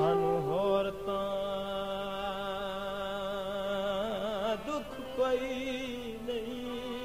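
Saraiki folk music: a slow melodic line of long held notes with wavering ornaments, between sung verses.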